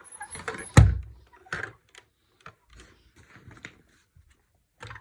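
Small hard objects being handled, clicking and knocking against each other and a surface, with one heavier thump about a second in.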